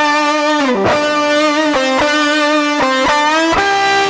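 Distorted electric lead guitar (a PRS) playing a solo line through an amp-simulator preset: overdrive pedal into a Marshall Super Lead amp model with an octave-up harmonizer. Single sustained notes with a picked attack on each, downward slides and slight vibrato.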